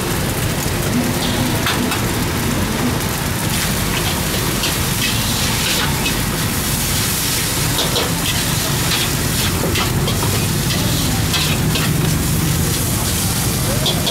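Fried rice sizzling in a hot wok as it is stir-fried with a metal ladle and a spatula. The utensils scrape and clink against the wok again and again over a steady sizzle.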